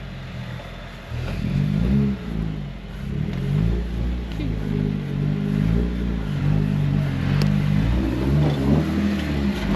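Off-road 4x4's engine revving up and down under load as it climbs the hill. The revs rise and fall repeatedly, and the engine is quieter for about the first second.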